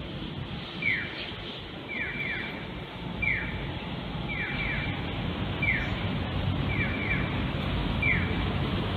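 Japan Air Lines Boeing 767-300 jet passing low overhead, its engine noise a steady rush that grows louder. Over it, a high falling chirp repeats at an even pace, alternately once and in a quick group of two or three.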